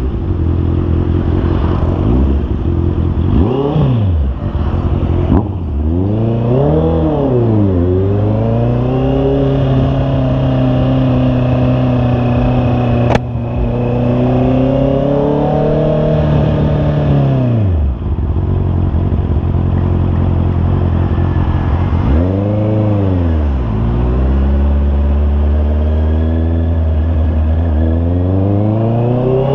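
Honda CB650R's inline-four engine under way, the revs rising and falling. It holds a steady pitch for several seconds, drops off sharply about eighteen seconds in, swells up and back down again, then climbs toward the end. There is one sharp click about thirteen seconds in.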